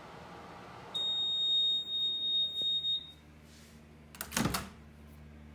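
1981 Kenmore microwave oven running with a steady hum, then it stops and its end-of-cycle timer sounds one long, high electronic beep of about two seconds. About a second later there is a short loud clunk, typical of the oven's heavy door being unlatched and opened.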